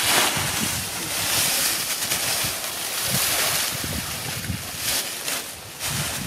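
Dry fallen leaves rustling and crunching as armloads are scooped up off the forest floor and carried, a continuous noisy swish that rises and falls with each grab.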